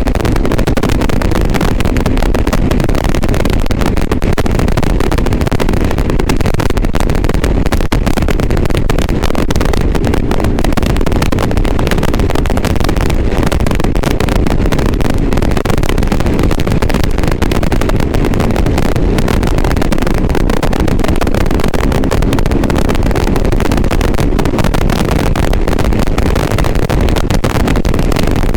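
Loud, steady, rough wind-and-engine noise from riding a motorcycle, with no clear engine note, heard through a GoPro Hero 7 Black's external microphone; the crackly, muddy quality is the bad sound of that setup.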